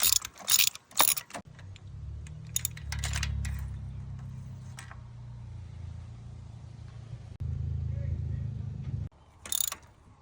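Metal clinks and clatter of a ratchet and 5/8 spark plug socket being worked in the engine bay, then a steady low rumble that gets louder about seven seconds in and cuts off suddenly, followed by another brief clatter near the end.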